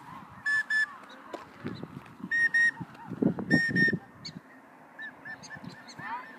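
Prairie dogs barking alarm calls: short, high yips given in quick pairs, three loud pairs close by, then fainter chirps from others. A low rustling noise comes in the middle.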